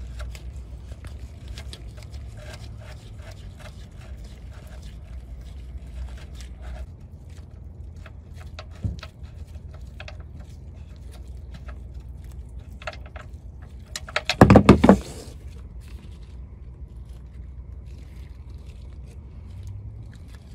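Oil drain plug being unscrewed by hand from a car's oil pan: small metallic clicks and scrapes over a steady low hum. A single loud clattering burst comes about three-quarters of the way through.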